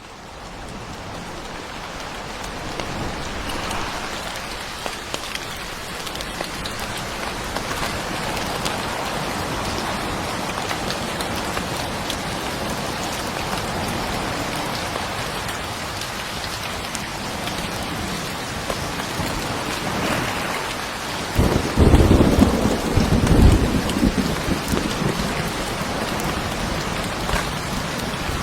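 Steady heavy rain falling, fading in at the start, with a low roll of thunder about three-quarters of the way through that is the loudest moment.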